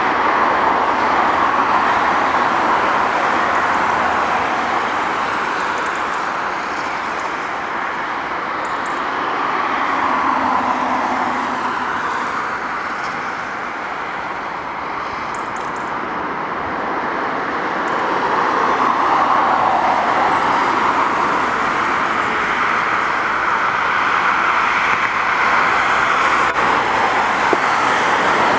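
Jet engines of twin-engine airliners on landing approach: a steady rushing engine noise that swells and fades as aircraft pass low overhead, its pitch sweeping down twice. It grows louder again in the last third.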